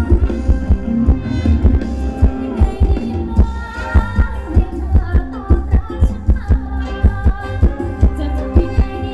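Live band playing upbeat Thai ramwong dance music, with a steady, evenly spaced drum beat under sustained melody lines.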